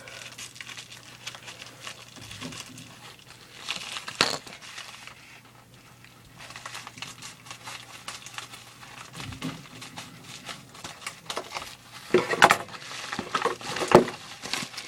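Mailing package being handled and opened, its packaging crinkling and rustling in irregular bursts, louder about four seconds in and again near the end.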